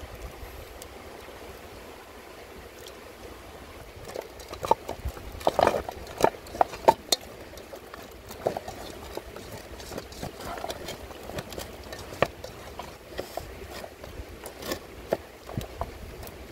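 Wet squelching and light clicks of a hand rubbing chopped chili into raw fish among mushrooms in a steel pot, busiest from about four to seven seconds in, over a steady low rumble.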